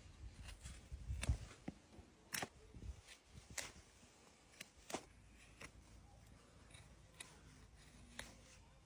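Hoof-trimming tools cutting into an overgrown horse's hoof: irregular sharp snips and clicks, about one a second, with a low rumble of handling about a second in.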